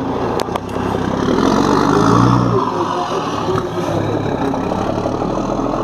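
Diesel engine of a large truck tractor unit rolling slowly past at close range, swelling to its loudest about two seconds in, then settling to a steady run.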